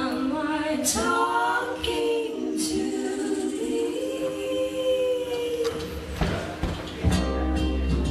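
Several voices singing together in harmony with little or no accompaniment, long notes held and sliding. About seven seconds in, strummed acoustic guitar and ukulele come in under the voices.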